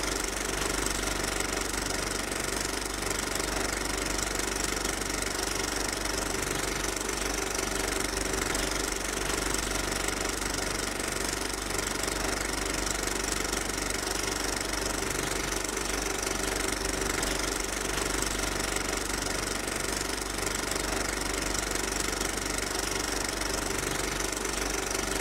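A steady mechanical drone, like an engine running, with a few constant tones in it and no change in level.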